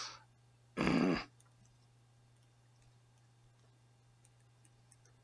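A short vocal sound, about half a second long, a second in, then near silence with a few faint ticks of a pen writing on paper over a faint steady hum.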